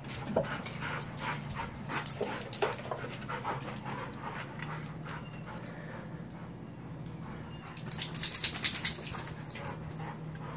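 A dog whining in short, high whimpers over the first few seconds, with a burst of high clicking about eight seconds in.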